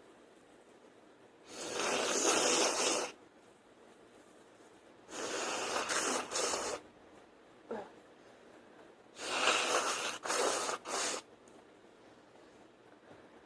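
A woman blowing her nose hard three times: one long, even blow, then two more that break into several short blasts.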